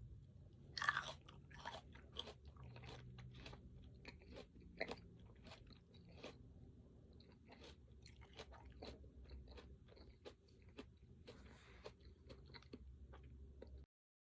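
Close-miked chewing and biting with crisp crunches: someone eating crunchy food such as fruit or nuts. The sharpest crunch comes about a second in, and the sound stops abruptly near the end.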